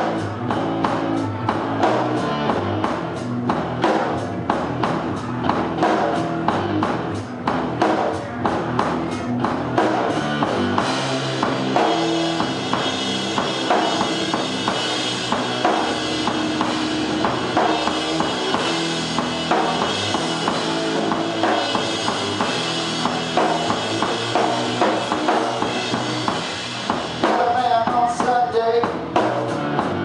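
Live rock duo of drum kit and electric guitar through an amplifier playing a song. The sharp drum hits thin out about a third of the way in, leaving a more sustained sound, and come back strongly near the end.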